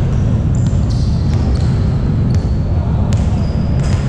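Basketball game play: a ball bouncing and short high sneaker squeaks on the court, over a dense steady low rumble.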